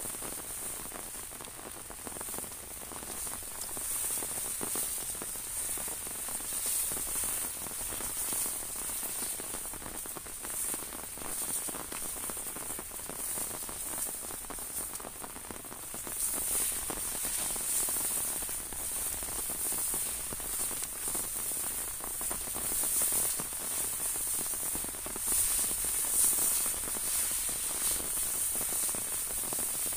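Steady rain falling on an umbrella held overhead and on the rice field around it, an even hiss that grows louder about halfway through.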